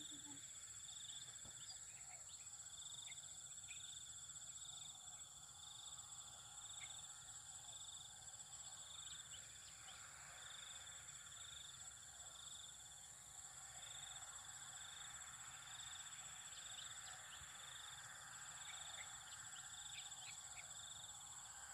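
Faint insects calling: a steady high-pitched drone, with a second call pulsing a little more than once a second and a few short chirps scattered through.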